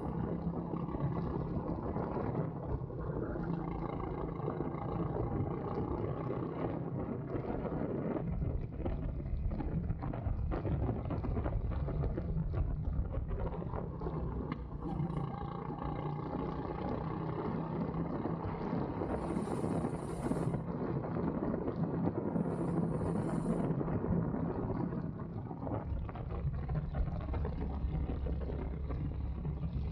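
Go-kart engine running at speed around the track, its note rising and falling, with wind noise on the microphone.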